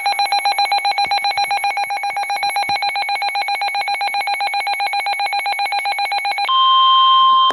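Weather alert radio sounding a warning alarm: a fast, evenly pulsing electronic tone for about six and a half seconds, then a switch to a steady single high tone, the NOAA Weather Radio warning alert tone. It signals that a warning, here a severe thunderstorm warning for the listener's area, is about to be read.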